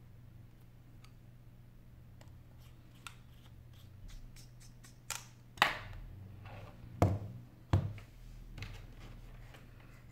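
Hands handling an iPhone 8 Plus: light clicks and taps, then a few sharper, louder knocks in the second half as the phone is set down on a desk mat. A steady low hum sits under it.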